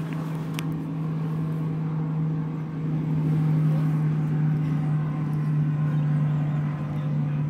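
Motorboat's outboard engine running steadily out on the lake, a steady drone that grows a little louder about three seconds in.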